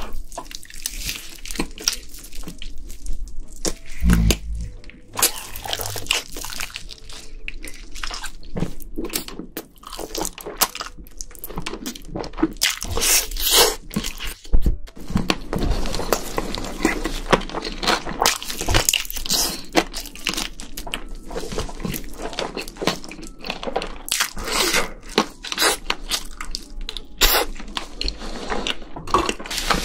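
Close-miked crunching and chewing of sauce-coated fried chicken: irregular crisp bites and chews, one after another.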